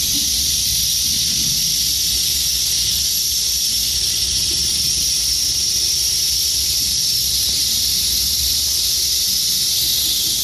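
Steady high hiss, unbroken and even in level, with a faint low rumble underneath.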